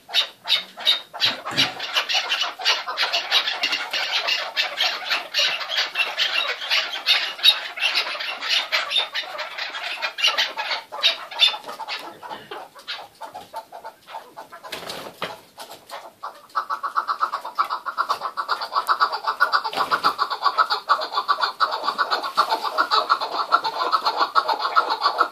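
Chukar partridges calling in rapid, repeated clucking notes, dense through the first half and sparser around the middle. From about two-thirds in, a faster and more even chattering run of calls takes over. A couple of knocks are heard in between.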